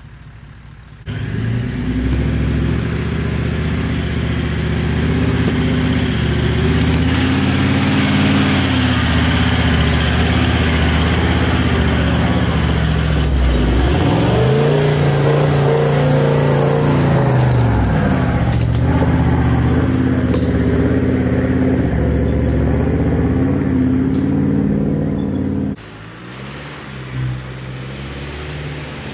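A four-wheel drive's engine running hard under load on a rutted hill track. It comes in suddenly about a second in, its pitch dips and rises again about halfway through, and it drops sharply to a quieter running sound near the end.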